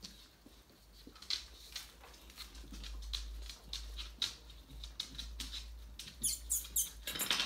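Tamaskan dog and puppies' claws clicking and pattering irregularly on a wooden floor as they walk about. About six seconds in, a quick run of short, high squeaks joins in.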